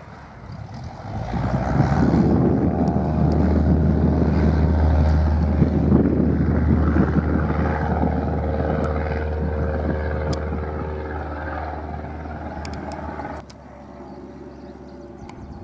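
Single-engine Cessna light aircraft taking off, its piston engine and propeller at takeoff power in a steady drone. It grows loud about a second in, slowly fades as the plane climbs away, and drops off suddenly near the end.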